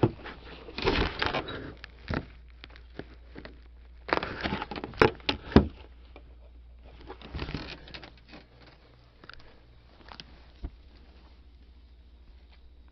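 Rustling and knocking as things are moved and handled during a search of a room: scattered clicks and short bursts of rustling about a second in, around four to six seconds in and again around seven to eight seconds, then quieter.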